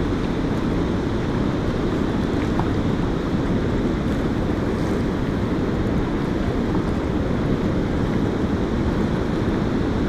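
A low, steady rushing noise with no words, even in level throughout.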